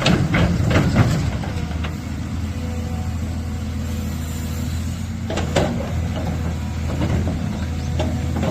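A heavy machine's engine idling steadily with a low rumble. Several sharp knocks come in the first second, and a louder one about five and a half seconds in.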